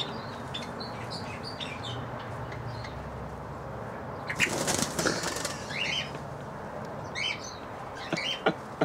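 A bird's wings flapping hard for about a second, a little over four seconds in, among short chirps of small birds. A few sharp clicks come near the end.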